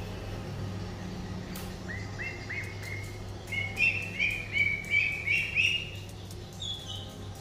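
Baby poultry peeping: a run of short, high chirps, about three a second, starting about two seconds in and loudest in the middle, with a few higher chirps near the end. A low steady hum runs underneath.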